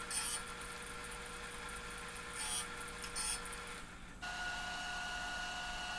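Disc sander running, with three short grinding hisses as a small steel square nut held in pliers is touched to the abrasive disc. About four seconds in the sound cuts to a different steady hum.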